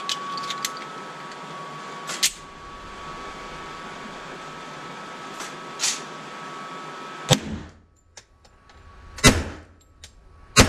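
A Detonics Scoremaster 1911 in .45 ACP is loaded with a few metallic handling clicks and a sharp clack about two seconds in. It is then fired three times, about 7 seconds in, about 9 seconds in and right at the end, each shot with a ringing echo down the indoor range. The rounds are light 230-grain homeloads over Hodgdon Clays powder.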